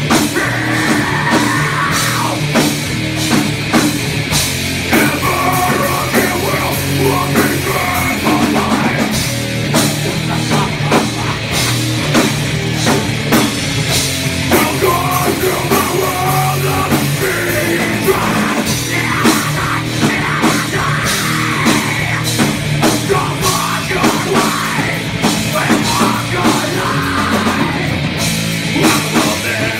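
A heavy rock band playing live and loud: distorted electric guitar over a drum kit with constant cymbal and drum hits.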